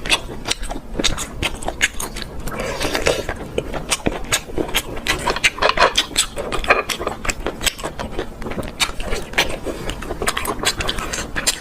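Many sharp clicks and cracks, one after another, as seafood shells are handled and broken open by hand.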